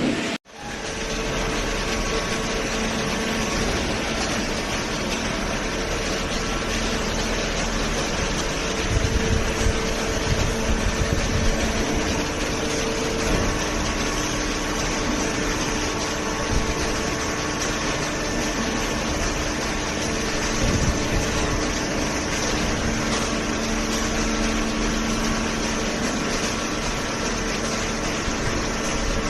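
Hydraulic cardboard baler's motor and pump running: a steady mechanical hum with a few held whining tones that come and go, and some heavier low rumbling around a third of the way in. The sound drops out briefly about half a second in.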